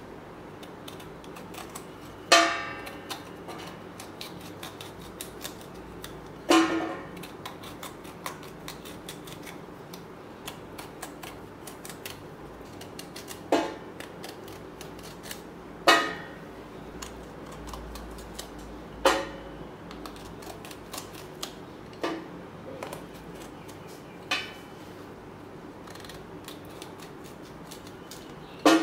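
Serrated knife scraping and cutting the rind off a young jackfruit, with fine crunchy clicks throughout. About eight sharp, briefly ringing clinks a few seconds apart as the knife or cut peel strikes the stainless steel plate.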